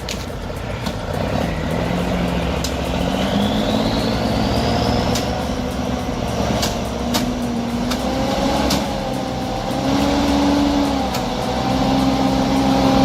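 Heavy diesel engine of a logging truck running under load, its pitch rising and shifting in steps, with a few sharp clanks.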